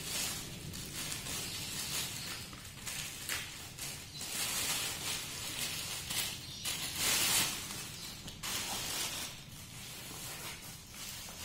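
Plastic wrapping rustling and crinkling in repeated bursts as it is pulled off and handled.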